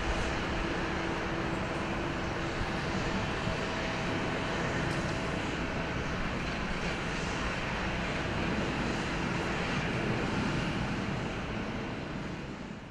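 Jet airliner engines running with a steady, even noise and a faint steady hum under it, fading away near the end.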